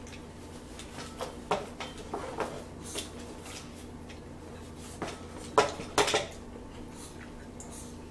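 Cutlery clinking against dishes while eating: a few light clicks in the first three seconds, then a louder cluster of sharp clicks about five to six seconds in.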